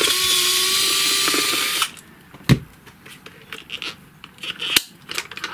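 Small electric screwdriver running for about two seconds, its whine rising slightly in pitch as it backs out the battery-cover screw. After it stops come a sharp click and a few lighter clicks from handling the plastic case.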